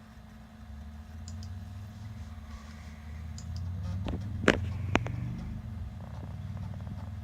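Macintosh SE floppy drive whirring as it reads a disk, its motor hum shifting in pitch in steps. A few faint ticks and two sharp clicks about half a second apart come near the middle.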